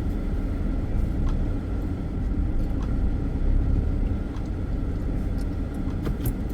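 Steady low rumble of a car in motion, heard from inside the cabin: engine and tyre road noise.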